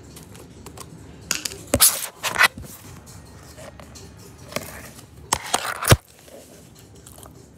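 Close handling noise: two short flurries of rustling and scraping, each ending in a sharp knock, about two seconds in and again near six seconds.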